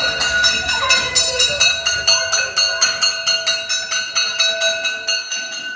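Metal bell struck rapidly and repeatedly, about five strikes a second, each stroke ringing on, then stopping near the end: the alarm signal for a school evacuation drill.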